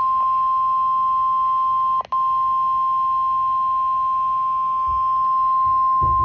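NOAA Weather Radio's 1050 Hz warning alarm tone: one steady, loud, high-pitched beep, cut by a very brief dropout about two seconds in. It signals that a warning message is about to be broadcast.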